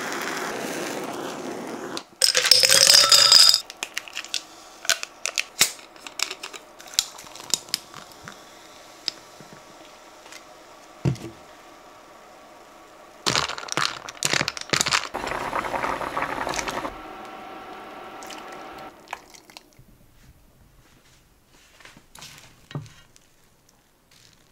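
Butane kitchen torch (Soto KC-402WH) hissing steadily for about the first two seconds, then cutting off. After it come scattered clicks and knocks, with a loud burst of crackling noise just after the torch stops and a longer one in the middle, and quieter crunching near the end.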